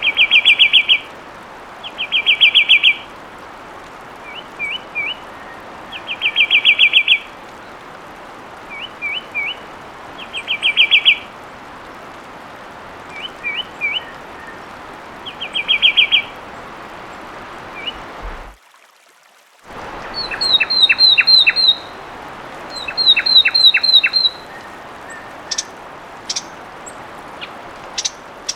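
Fulvous wren song. Each phrase is a few short rising whistles followed by a fast trill, repeated about every four seconds. After a brief silence, a different recording brings two quicker, higher phrases and then scattered short notes.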